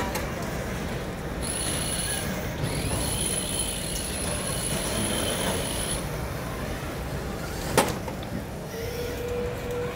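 The electric motors of a robotics competition robot whine in high steady tones for a few seconds over the general noise of a crowded arena. Near the end there is a single sharp knock, followed by a steady mid-pitched tone in the last second.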